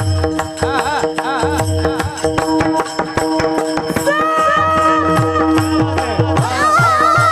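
Marathi devotional bhajan music: a steady sustained drone under quick drum and cymbal strokes, with a wavering melody line that is held from about four seconds in.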